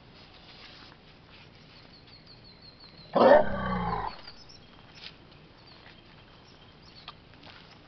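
Sri Lankan elephant calf giving one loud call about three seconds in, lasting about a second and falling in pitch.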